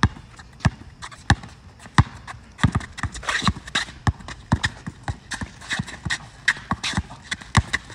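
A basketball being dribbled on an outdoor asphalt court: sharp bounces about every two-thirds of a second, then quicker and uneven from about two and a half seconds in as the ball handler works crossover moves.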